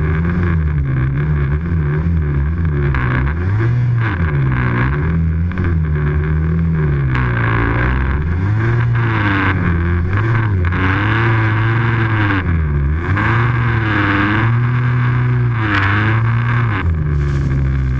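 Snowmobile engine running hard, its pitch rising and falling over and over as the throttle is worked through the turns.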